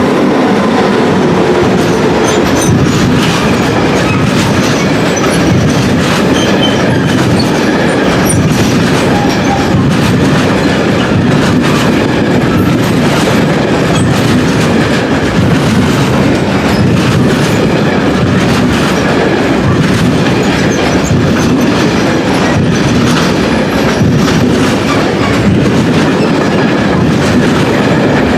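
Heavy freight train of four-axle sliding-wall wagons rolling past close by on the mountain line, with a steady loud clatter of wheels over rail joints and occasional brief high squeaks from the wheels.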